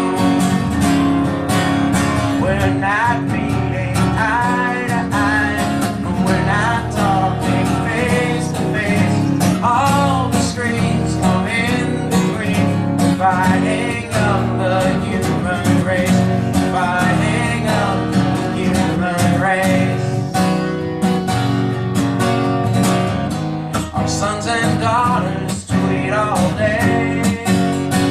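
Acoustic guitar strummed steadily as song accompaniment, with a sung melody over it for much of the time.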